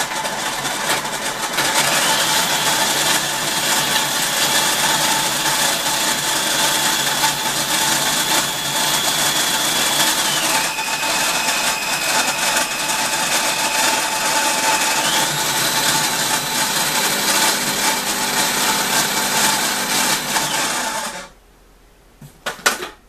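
Electric food processor running, chopping garlic cloves, with a steady motor whine whose pitch drops for a few seconds midway and then rises again. It cuts off suddenly near the end, followed by a few clicks.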